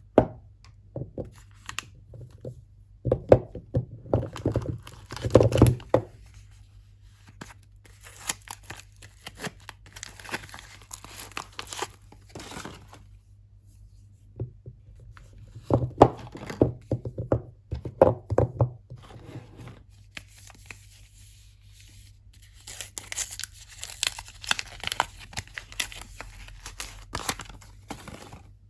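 Soap packaging being torn open and crinkled by hand, in irregular bouts of rustling and tearing, with a longer spell of tearing and crinkling near the end.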